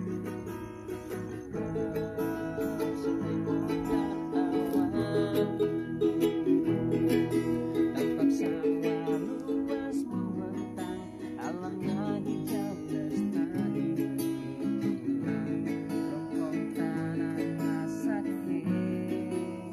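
A ukulele and an acoustic guitar strummed together, playing a continuous tune.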